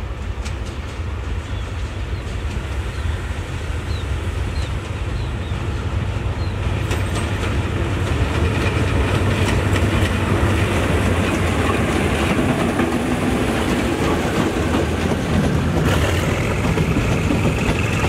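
Diesel-electric locomotive GE No. 4050 hauling a container freight train, its engine rumbling as it approaches and passes, getting louder about halfway through. Near the end a high whine comes in and rises.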